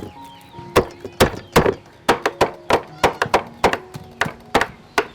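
Knife chopping on a wooden cutting board: sharp, uneven thunks about two to three a second. Soft background music plays underneath.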